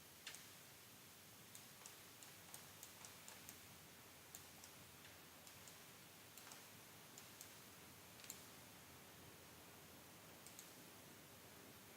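Faint computer mouse clicks, irregular and some in quick pairs, over a steady low hiss.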